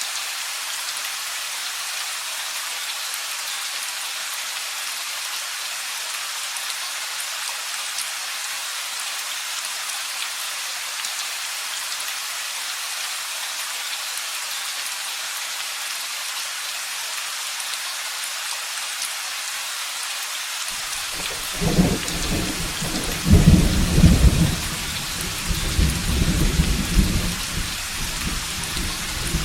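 Steady rain hissing, then about 21 seconds in a long low rumble of thunder begins and rolls on in several surges, loudest around 23–24 seconds in and again at the very end.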